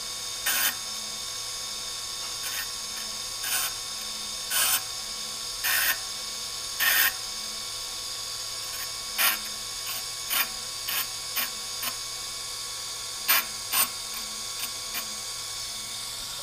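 TDR 82B drill grinder's motor humming steadily, with a dozen or so short, sharp metallic clicks and scrapes as the wheel dresser's arm and fittings are handled and set to the 90-degree position.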